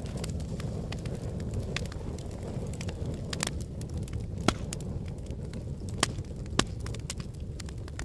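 Wood fire crackling in a fireplace: a steady low rumble of burning logs with scattered sharp pops and snaps. Three louder pops come in the second half.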